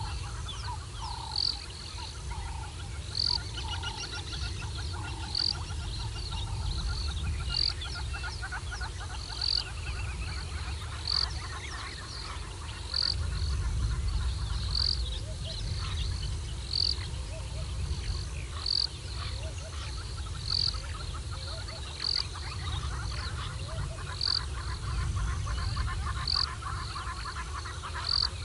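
Frogs and birds calling at a pond: a short high chirp repeats about once a second, over rattling trills and a steady low rumble.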